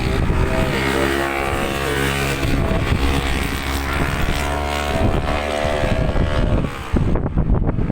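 Racing motorcycle engines running at high revs as bikes go past the track, then wind buffeting the microphone about seven seconds in.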